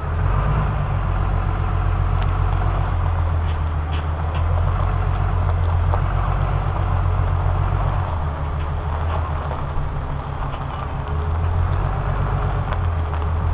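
Ram 3500's 6.7-litre High Output Cummins turbo-diesel running at low speed under load while moving a fifth-wheel trailer, a steady low rumble.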